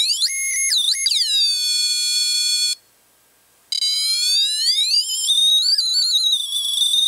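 Junior Theremin kit's piezo speaker sounding a steady, buzzy electronic tone that jumps up in pitch as a hand comes near the antenna, then settles back down. It cuts out for about a second, then returns with a slower rise and fall in pitch as the hand moves.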